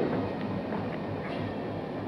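WDG3A diesel locomotive running as it pulls a long-rail rake away: a steady engine rumble with a faint low throb about four times a second.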